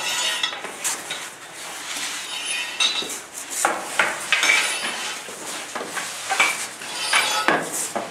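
Irregular metallic clanking and knocking of firefighters' gear, such as air-pack cylinders and hand tools, as they crawl across a concrete floor.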